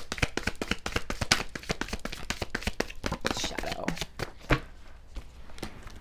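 A deck of tarot cards being shuffled by hand: a rapid run of papery card clicks that thins out after about three seconds, with a single louder click about four and a half seconds in.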